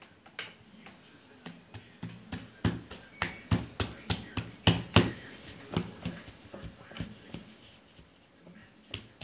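Hands kneading and pressing a block of dough on a floured board: an irregular run of soft slaps and thumps, thickest and loudest in the middle and thinning out towards the end.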